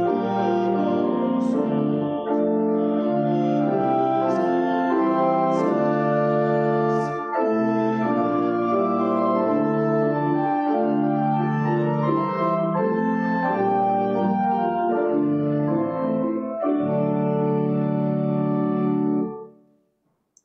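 Church organ playing a hymn tune in sustained full chords that change every second or two, then stopping about nineteen and a half seconds in.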